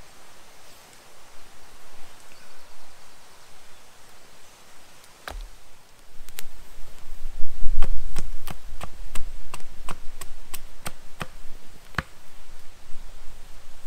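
A series of sharp chopping knocks: two single strikes, then a quick run of about a dozen at two to three a second, with a low rumble beneath the loudest of them.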